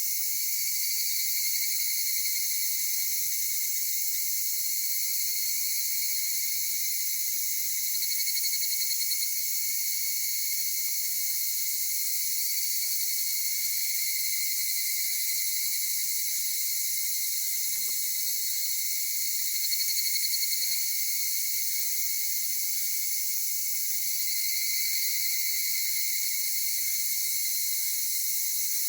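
Dense, steady, high-pitched chorus of singing insects, evening cicadas (higurashi) among them, with pulsing calls swelling up several times.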